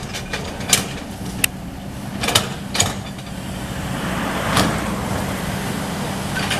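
Kobelco excavator's diesel engine running steadily, with several sharp knocks in the first three seconds and a brief louder surge a little past the middle.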